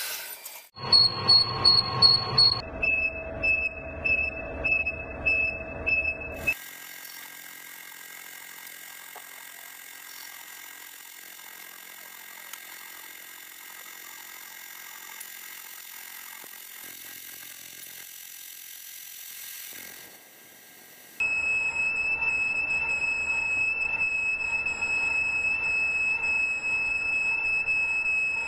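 Metal lathe turning a steel pin, the cutting tool squealing as it peels off chips. For the first few seconds the squeal pulses about twice a second. Through the middle the cut runs quieter and steady, and near the end a loud, steady high-pitched squeal returns.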